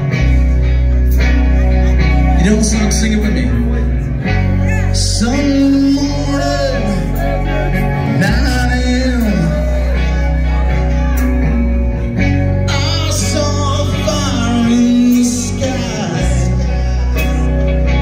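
Live amplified rock band playing, with electric guitars, a heavy sustained bass line, drums and a singer's voice, heard loud through the room from the crowd.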